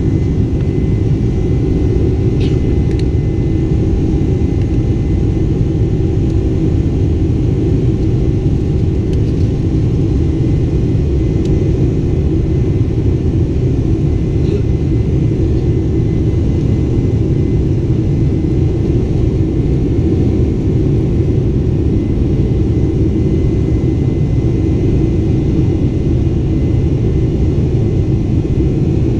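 Boeing 747 Combi's General Electric turbofans at climb power after takeoff, heard inside the cabin beside the wing: a steady, loud, low rumble with a few steady hums in it.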